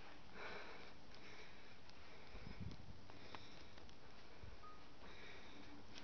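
A person breathing and sniffing close to the microphone, several soft breaths in a row, with a soft low bump about halfway through.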